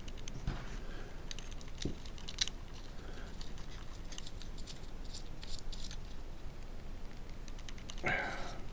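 Standoffs and small screws being handled and twisted by hand against a carbon-fibre gimbal plate: scattered light clicks and scrapes, in small clusters.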